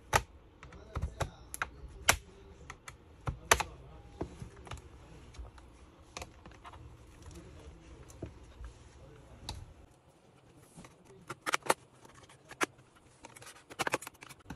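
Irregular clicks and snaps of a thin metal pry tool working along the seam of an HP Omen gaming laptop's plastic bottom cover, unlatching the cover's clips.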